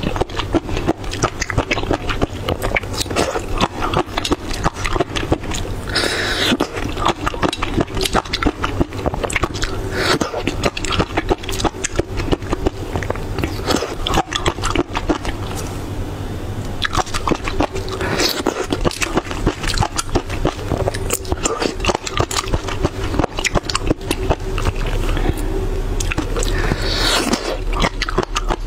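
Close-miked eating of pickled mud snails: dense crackling and clicking as the thin shells are bitten and the meat is sucked out and chewed, with a few short hissing swells.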